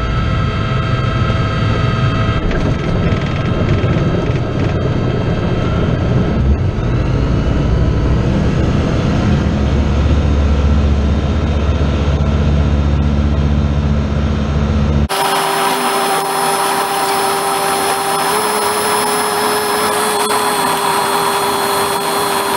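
Propeller engine of a light aircraft, the Atec 321 Faeta's Rotax 912, running steadily as heard inside the cockpit while the plane rolls along the runway. About 15 seconds in the sound changes abruptly: the deep rumble drops away and steady higher hums are left as the aircraft taxis.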